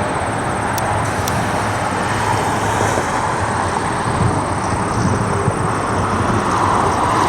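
Jet aircraft engine noise, a steady broad rush that grows a little louder near the end.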